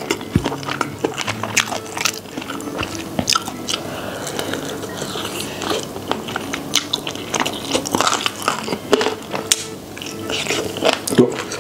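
Close-up eating sounds of fried chicken in cheese sauce being bitten and chewed: crunchy bites and wet chewing with many small clicks and crackles.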